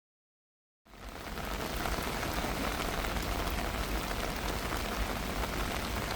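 Heavy rain falling steadily, a dense hiss with fine patter of drops, starting after about a second of silence.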